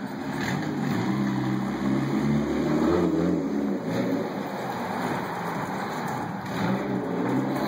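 A car engine running on the street, a steady low hum that grows louder about two to three seconds in and then eases off.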